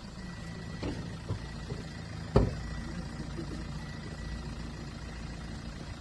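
Steady low engine-like rumble, with one sharp knock about two and a half seconds in.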